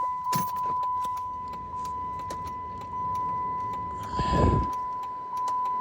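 A steady, high electronic beep holds one pitch without a break, over scattered small clicks and rattles. About four seconds in, a brief rushing thump is heard.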